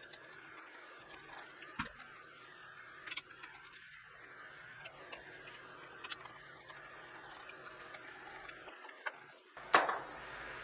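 Scattered small clicks and taps of hand work on a garbage disposal, with one sharper knock near the end.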